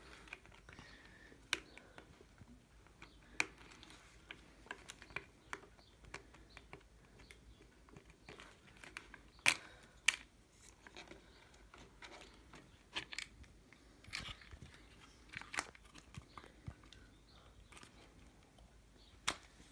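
Scattered clicks, taps and knocks of hand tools and small plastic and metal parts being handled while a golf trolley's handle switch potentiometer is taken out. Several sharper knocks stand out, two close together about halfway through.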